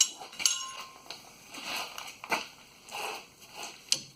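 Anti-seize being brushed onto the threads of new steel U-bolts: soft scraping strokes, with a few sharp metal clicks as the bolts and the compound's container are handled.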